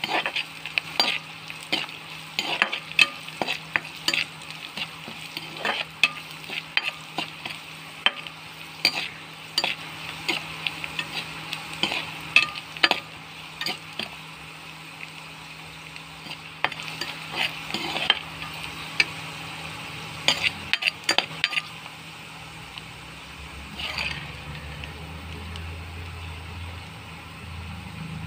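Metal spatula stirring and scraping against a wok of onions, chillies and spices frying in oil, over a steady sizzle. The scrapes come thick and irregular, then thin out over the last several seconds.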